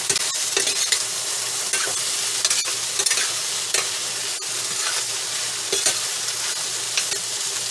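Okra, vegetables and vegetable protein sizzling in a frying pan with coconut oil while being stirred, the utensil clicking and scraping against the pan now and then over a steady sizzle.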